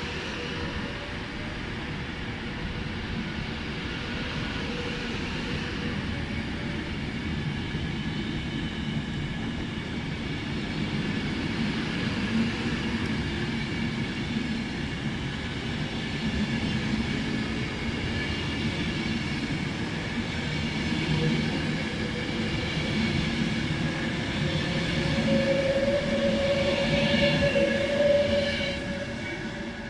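Class 390 Pendolino electric train running slowly past the platform, a continuous rumble of wheels on rail with a steady whine over it. It grows louder toward the end as the last coaches go by.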